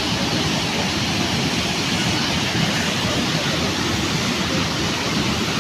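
Waterfall in full flow: a steady rush of falling water.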